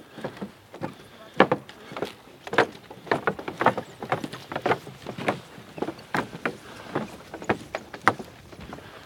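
Footsteps on a wooden boardwalk: shoes knocking on the planks at a walking pace, about two steps a second.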